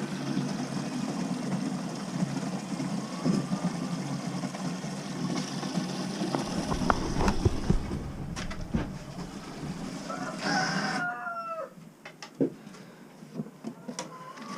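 A steady mechanical drone with several knocks and clunks, then a rooster crows once about ten seconds in, and the droning background cuts off suddenly just after.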